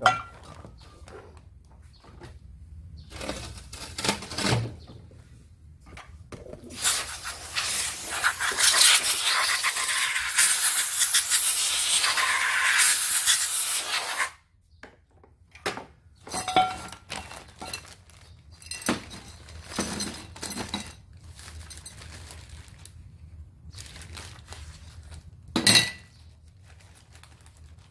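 Hand tools working on a submersible pump's metal motor housing as its bottom cover is swapped. A loud, harsh scraping noise runs for about seven seconds partway through and cuts off suddenly, followed by scattered clinks, taps and plastic-bag rustling, with one sharp knock near the end.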